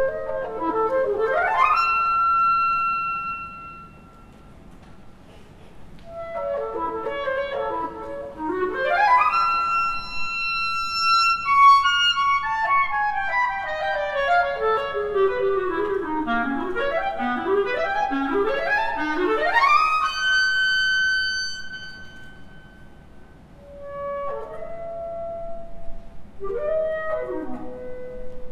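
Music: a solo wind instrument playing quick upward runs and glides that end on long held high notes, then a busy passage of rapid rising and falling figures climbing to another held high note, and a few short phrases near the end.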